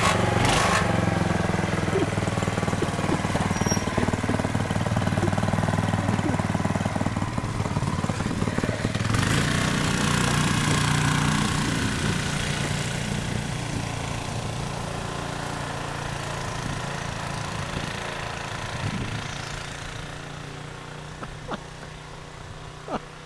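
Small go-kart engine running as the kart pulls away, swelling briefly as it revs about ten seconds in, then fading steadily as it drives off into the distance.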